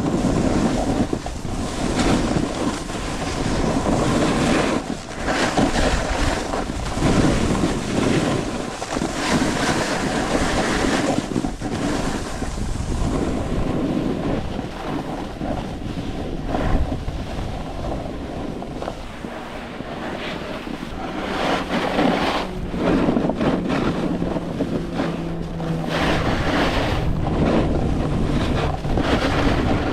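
Snowboard sliding and scraping over firm, chopped-up snow while turning, with wind rushing over the microphone; the noise swells and fades over and over.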